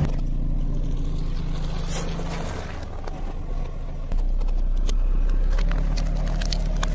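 Car engine running low and steady, stepping up in level about four seconds in, with short crackles near the end.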